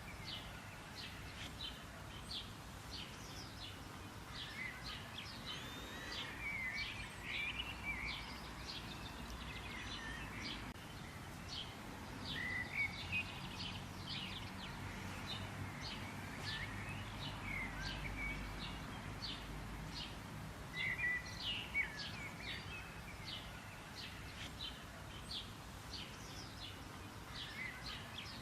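Many small birds chirping and calling together, a dense run of short high chirps with occasional brief whistled notes, over a faint low background rumble.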